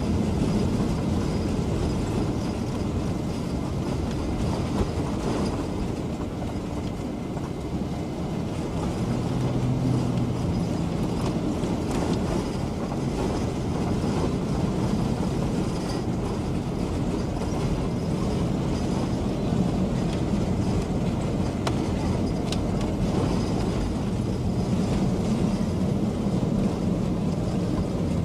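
Vehicle driving on a road: a steady rumble of engine and road noise with a low engine drone that rises and falls slightly.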